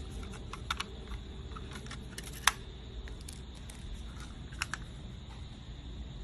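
Sharp plastic clicks and snaps from handling a Logitech M221 wireless mouse as its battery cover is unlatched and taken off, the loudest snap about two and a half seconds in, over a low rumbling background.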